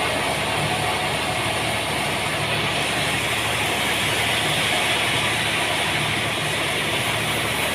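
Sawmill machinery running steadily, a continuous mechanical noise with a low, even pulsing underneath.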